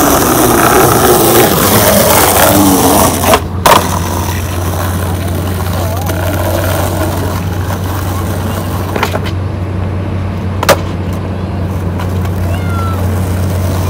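Skateboard rolling over rough concrete, a steady wheel rumble, with two loud sharp clacks of the board close together about three and a half seconds in and single knocks around nine and eleven seconds.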